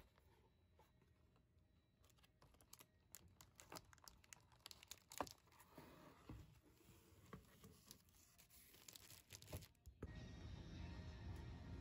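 Faint rustling and crinkling of a cardboard box and its packaging being handled and opened, with scattered light clicks and taps, the sharpest about five seconds in. A steadier low background comes in near the end.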